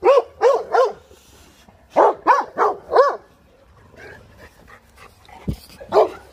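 Dogue de Bordeaux barking excitedly in quick runs: three barks, then four more about two seconds later, and a single bark near the end. A dull low thump comes just before the last bark.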